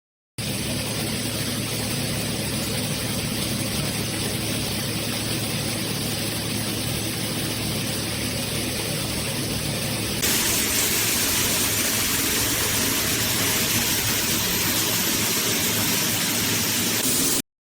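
Shower water running steadily from the shower fixture. About ten seconds in, the hiss turns brighter and louder.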